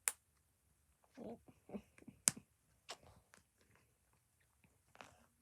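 A few sharp, separate plastic clicks and small knocks as pieces of a fidget toy are handled and fitted together into a puzzle; the loudest click comes a little after two seconds in.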